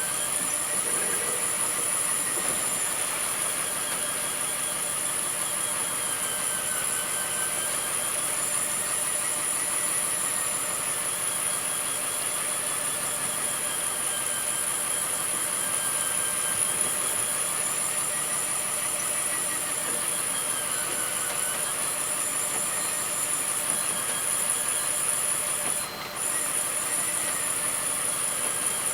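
Fishing boat's engine running steadily, with a constant high whine over it and a pitch that wavers slowly; the sound dips briefly near the end.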